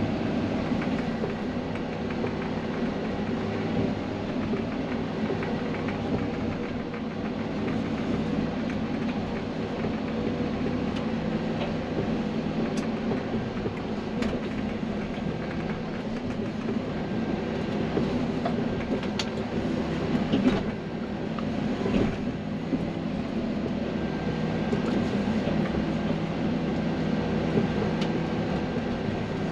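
Farm loader's diesel engine running steadily while it moves a hitched trailer, with a few sharp knocks in the middle stretch.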